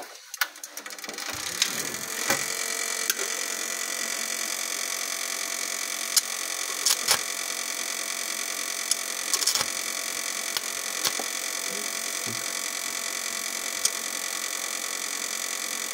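Stick-welding inverter switched on and humming steadily, coming in about a second in, with a few short sharp crackles as the electrode is touched to a broken bolt stub in the flywheel: an attempt to weld the electrode onto the bolt so it can be turned out.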